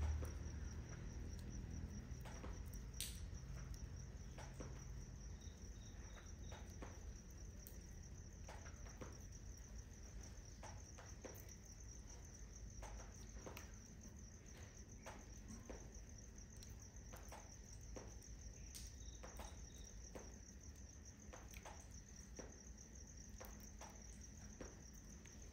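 Crickets trilling in a steady high chirr, with scattered faint crackles and pops from the smouldering wood fire.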